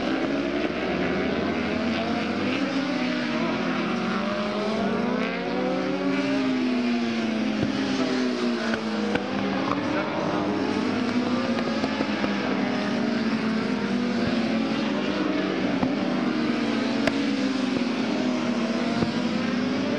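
Several superbike racing motorcycle engines at high revs as a pack passes through a corner, many engine notes overlapping, each pitch rising and falling.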